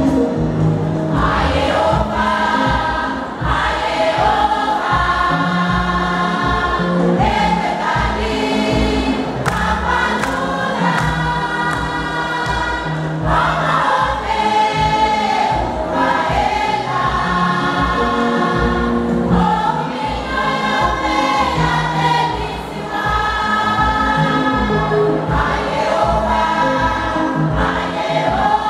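Church choir singing a gospel song in parts, accompanied by a band whose bass and drums keep a steady beat.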